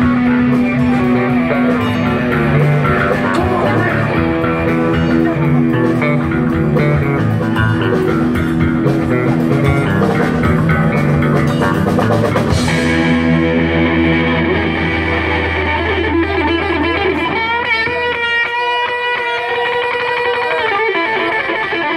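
Live rock band playing electric guitars and drums. About twelve seconds in the drums drop out and the song winds down to held guitar notes, some wavering in pitch, over a low held bass note that fades away.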